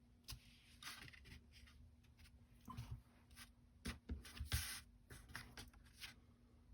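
Faint scattered taps, clicks and rustles of paper and rubber stamps being handled during card stamping, with a few sharper knocks between about three and four and a half seconds in.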